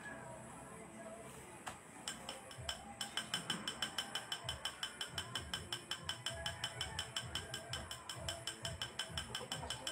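Rapid, even clicking, about four to five sharp clicks a second, starting about two seconds in and going on steadily, like a small mechanism ratcheting.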